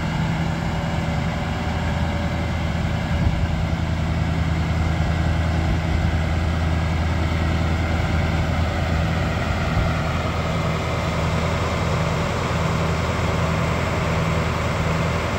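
Caterpillar 3208 V8 turbodiesel of a Ford C8000 fire engine idling steadily, with an even low rumble.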